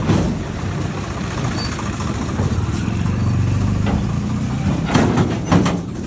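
A vehicle engine running steadily with a low hum, with a few sharp clicks or knocks near the end.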